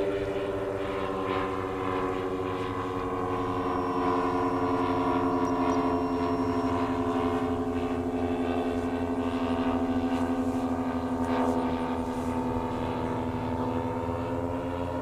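The two DLE 111cc twin-cylinder gasoline engines of a giant-scale twin-engine radio-control model, turning three-bladed propellers, drone steadily in flight, the pitch drifting slowly up and down as the model passes.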